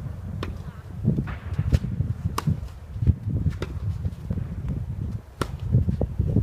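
Tennis balls struck by rackets in a rally, several sharp pops a second or more apart, over a steady low rumble of strong wind buffeting the microphone.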